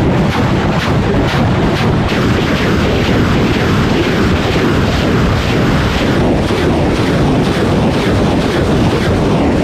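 BM-21 Grad multiple rocket launcher firing a salvo: a continuous loud roar of rocket motors, with a fresh launch about every half second.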